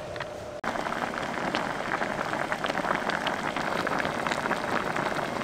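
Food sizzling and crackling as it cooks in hot oil or on a hot surface, a dense spatter of small pops that starts abruptly about half a second in.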